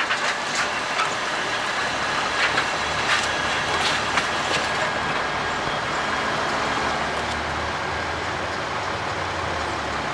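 A heavy demolition machine tearing into a building. Sharp cracks and crunches of breaking material come in the first few seconds over the machine's running engine, which then goes on steadily with a low hum and rattle.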